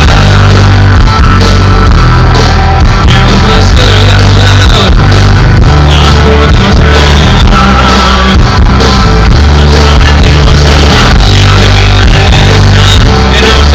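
Rock band playing live: electric guitar, bass and drums with a singing voice, very loud and even throughout.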